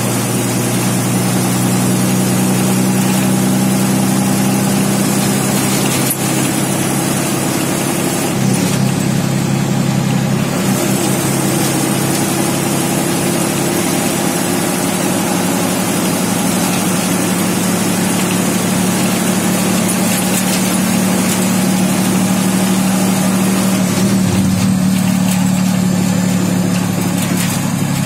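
MSRTC bus's diesel engine running on the road, heard from inside the bus: a steady engine drone under road noise, with a thin high whine above it. The engine note changes briefly about eight seconds in and again near the end.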